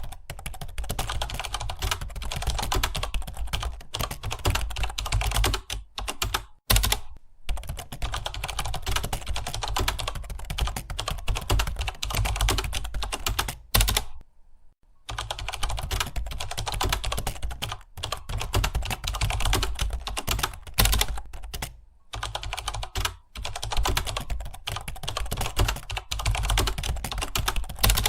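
Fast, continuous typing on a computer keyboard: a dense stream of key clicks, broken by short pauses and one longer pause about halfway through.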